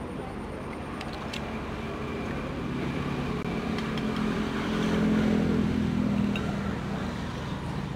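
A motor engine passing by: a steady low hum that grows louder to a peak about five seconds in, then fades.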